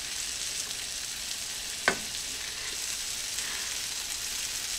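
Flour-dredged cube steaks sizzling in hot fat in a nonstick skillet as they sear, a steady hiss, with one sharp click about two seconds in.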